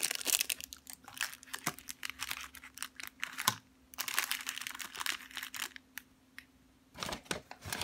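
Clear plastic toy packaging crinkling and rustling in the hands, with many small sharp clicks and taps as the package is handled and set down on a tabletop.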